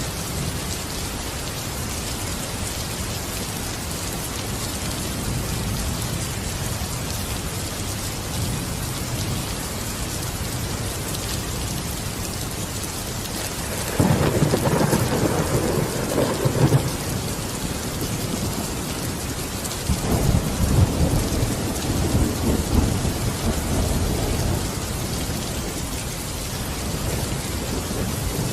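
Steady heavy rain, with rolling thunder. One rumble breaks in suddenly about halfway through and lasts a few seconds, and a second rumble follows a few seconds later.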